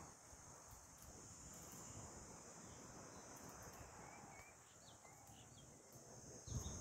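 Faint outdoor ambience: a steady high-pitched insect drone, with a few brief bird chirps. A low rumble comes up near the end.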